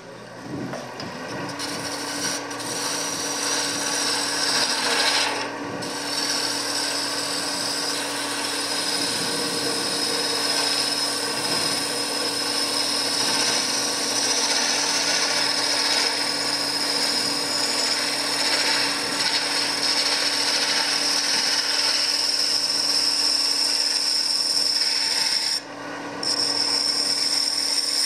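Wood lathe running while a gouge cuts the spinning wooden blank: shavings peel off in a steady hiss over the steady hum of the lathe. The cutting breaks off briefly a few seconds before the end, then resumes.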